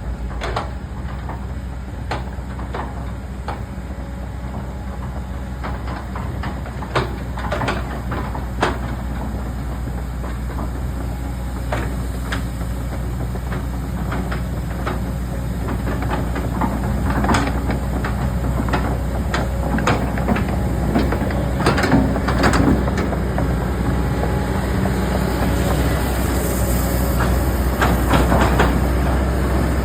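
A motor running steadily, with irregular knocks and clanks over it.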